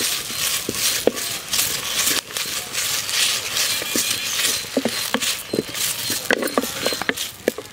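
Fresh curry leaves being stirred and dry-roasted without oil in a clay pot with a wooden spatula: the leaves rustle and the spatula scrapes the pot in quick repeated strokes.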